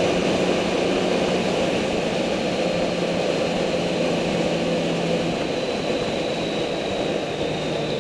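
Vehicle engine running at cruising speed over steady wind and road noise; the engine note eases off about five seconds in.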